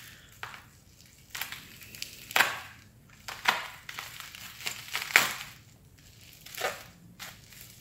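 Bubble wrap crinkling and rustling in irregular bursts as a knife is unwrapped from it.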